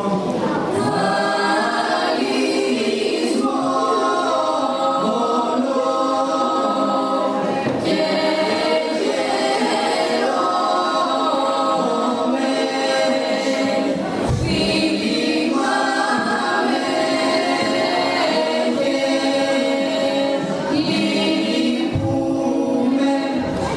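A group of children's voices singing together unaccompanied, with long held notes.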